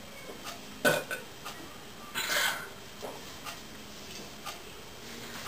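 A woman burping after chugging Coke. A short, sharp burp comes about a second in, and a longer one follows a little after two seconds in.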